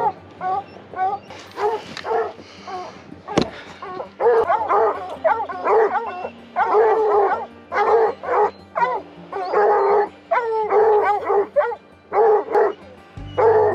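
A pack of hunting dogs barking and baying in rapid, overlapping calls that bend up and down in pitch: the dogs have a mountain lion bayed up in rocks. A single sharp click comes a few seconds in.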